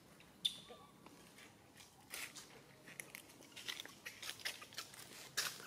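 Macaque biting and chewing a chunk of watermelon: irregular crunches and crackles, with a sharp click about half a second in and the crunching growing busier after about two seconds.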